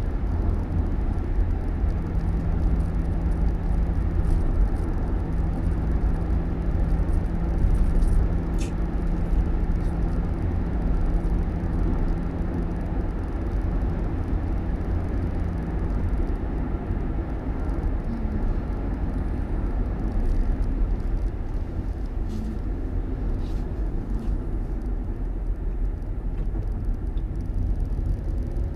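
Car running on the road: a steady low engine and road rumble, with a low hum that fades out about halfway and a few faint clicks.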